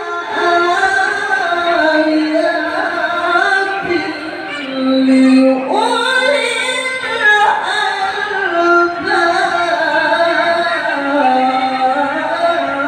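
A man singing solo into a handheld microphone in a slow, ornamented, melismatic style, with long held notes, including a low note held for over a second about five seconds in.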